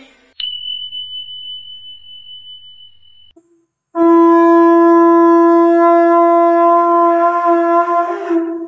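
A conch shell (shankha) blown as a horn, one long steady note held for about four and a half seconds, starting about four seconds in and wavering slightly just before it stops. Before it, a single high ringing tone fades away over about three seconds.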